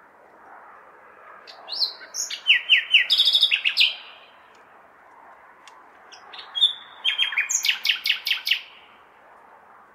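Nightingale singing: two phrases of fast repeated notes and rapid clicking trills, separated by pauses of a couple of seconds. A steady hum of city background noise runs underneath.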